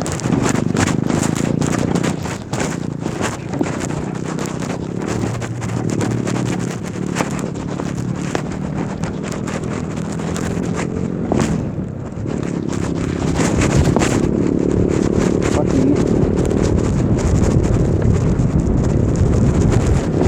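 Custom electric bike being ridden over rough ground: a steady motor hum that shifts pitch a few times, with frequent rattling clicks and knocks and wind on the microphone.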